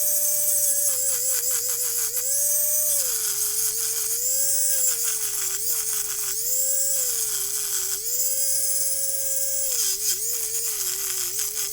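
Small handheld electric grinder running steadily, its pitch dropping and wavering each time it is pressed onto the battery cell's terminal to grind it clean, about five passes with brief free-running spells between them.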